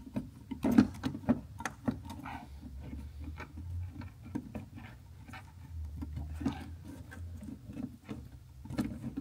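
Irregular small clicks, taps and scrapes of an LED landing light, its gasket and retaining ring being handled and pressed into the light housing, with a low hum in two stretches.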